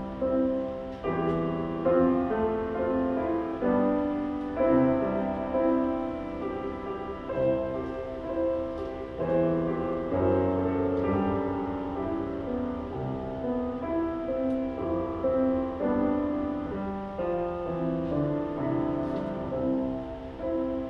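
Background music led by piano, a slow piece of held notes and chords.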